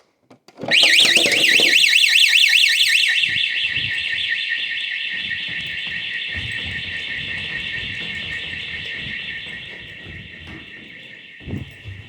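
Building fire alarm sounding: a loud, fast-warbling electronic siren starts about a second in, settles into a steadier tone after a couple of seconds and slowly fades. A short thump comes near the end.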